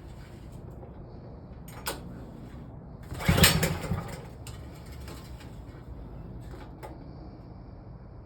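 Hart 3600-watt portable generator being pull-started: about three seconds in, one sharp yank on the recoil starter turns the engine over briefly without it catching. A few short clicks come before and after.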